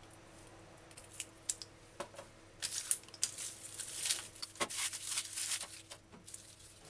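A few light knife clicks as a scallion is trimmed. Then a dense, crackly rustle and scrape as hands sweep dry onion skins and scallion trimmings across a countertop.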